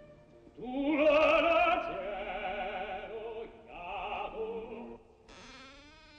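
Operatic singing with a wide vibrato: a sung phrase starting about half a second in and lasting around four seconds, loudest near the start. Near the end it gives way to a quieter, wavering tone.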